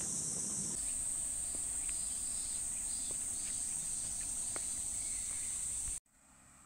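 Steady high-pitched shrilling of a summer insect chorus, with a few faint clicks. It cuts off abruptly about six seconds in, leaving only a much fainter hiss.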